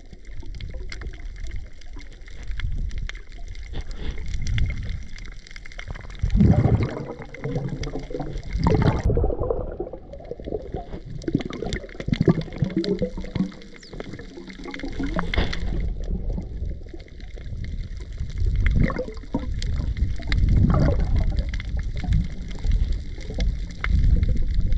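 Muffled underwater sound picked up by a camera held below the surface: water gurgling and sloshing, dull and mostly low, swelling and fading unevenly every second or two, with scattered brief crackles.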